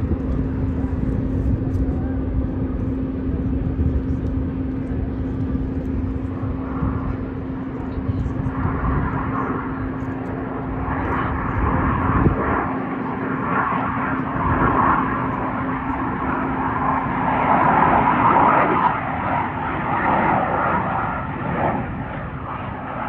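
CF-18 Hornet fighter jet's twin turbofan engines during a flying display pass. A low rumble builds from about eight seconds in into a loud, rough jet noise that peaks near the end. A steady low hum runs underneath until near the end.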